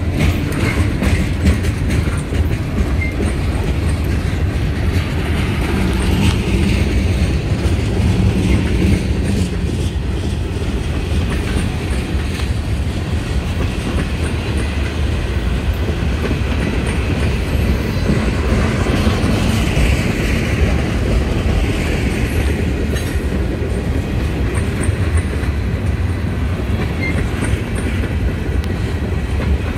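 Freight train tank cars rolling past close by. Steel wheels clatter over the rail joints in a steady, continuous rumble.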